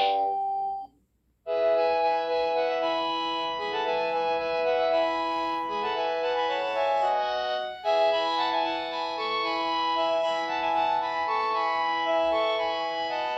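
Instrumental keyboard music with organ-like held notes and chords. It breaks off into near silence for about half a second, about a second in, and then resumes.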